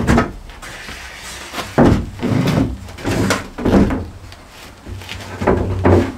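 Shower base knocking and scraping against the wood framing and subfloor as it is tipped down and set onto a mortar bed: about half a dozen separate knocks and thuds.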